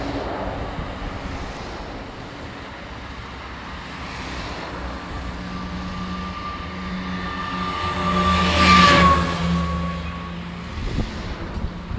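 Military convoy vehicles passing close by on a road: a steady engine drone with a high whine builds to a loud pass about nine seconds in, then fades.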